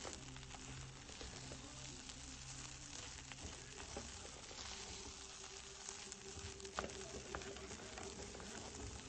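Rice and browned vermicelli sizzling in hot oil in a nonstick pan as they are stirred with a wooden spatula: a steady hiss with a few sharp ticks, the loudest about seven seconds in.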